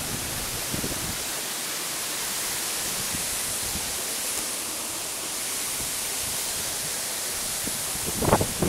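Steady, even hiss of background noise with no engine running. A louder, rough burst of wind or handling noise on the microphone begins near the end.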